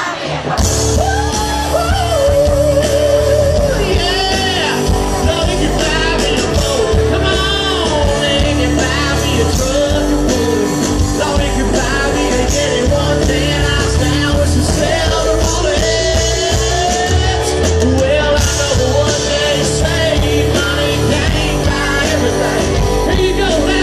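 A live country band playing a song, with loud amplified singing and some yelling over the music.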